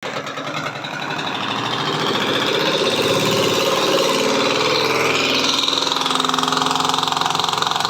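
LG washing machine's spin (dryer) tub running with a loud, continuous rattling vibration. This is the abnormal spin-dryer noise the machine is being repaired for.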